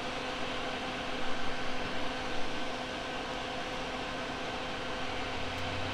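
Steady fan-like hum and hiss with a faint steady tone, and a few soft knocks between about one and two and a half seconds in.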